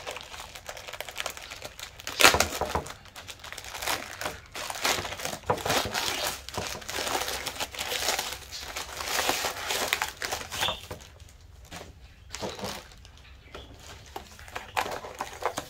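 Plastic poly mailer being torn open and crinkled, then the clear plastic-wrapped item inside pulled out: irregular rustling and crackling of thin plastic, with a loud sharp rip about two seconds in.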